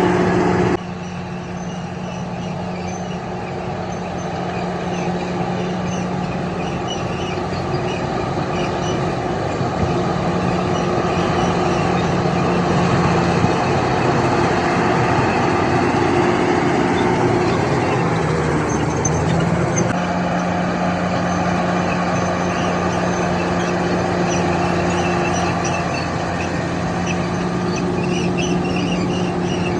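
Bulldozer's diesel engine running steadily while working, its note shifting briefly about two-thirds of the way through.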